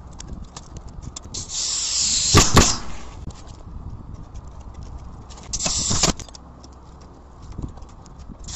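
Asphalt shingles being slid and scraped into place by hand, two rough scraping rushes about four seconds apart, each with a couple of sharp knocks, amid small clicks and taps of handling.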